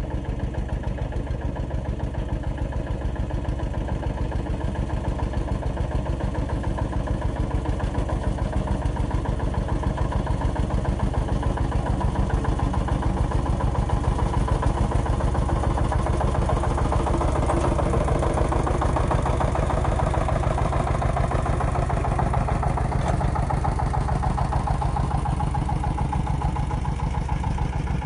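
Two-wheel walking tractor's single-cylinder diesel engine running with a steady, rapid chugging beat. It gets somewhat louder through the middle stretch.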